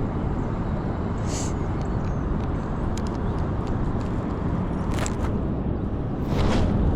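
Strong wind buffeting the microphone, a steady low rumble, with a few light clicks and a brief swish about six seconds in, the sound of a cast being made with a fishing rod.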